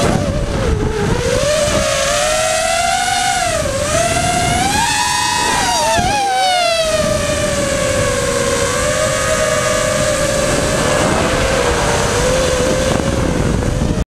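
A small drone's electric motors and propellers whining, the pitch sliding up and down with the throttle and dipping sharply about four and six seconds in. Wind rumbles on the onboard microphone underneath.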